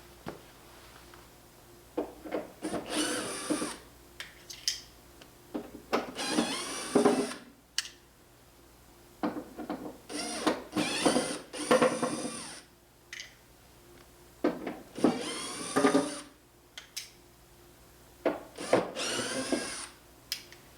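Electric drill-driver running in about six short bursts, each whirring up in pitch and back down, with small clicks and knocks between the bursts.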